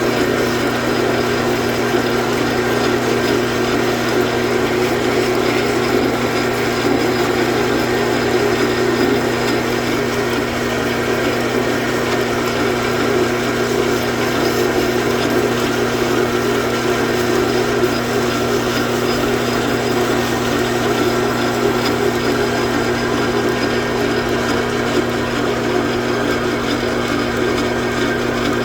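Metal lathe running steadily under power while turning a cut. It gives a constant hum with an even, unbroken cutting noise over it.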